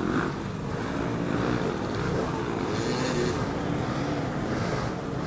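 Dirt bike engines running with revs rising and falling unevenly.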